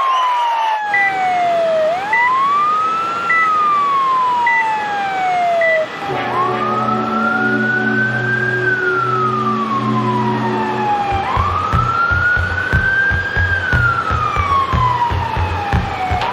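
Ambulance wail siren, each cycle rising quickly and falling slowly, about every two and a half seconds, with short repeated beeps alongside. About six seconds in, a different siren takes over with slower sweeps of about five seconds over a steady vehicle engine drone, and low rumbling knocks join it in the last few seconds.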